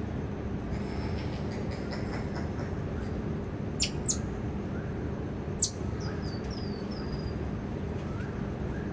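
Cotton-top tamarins calling with sharp, very high chirps: two quick downward-sweeping calls about four seconds in and another a moment later, then a short run of thin high whistles sliding down in pitch. Under them is a steady low background hum.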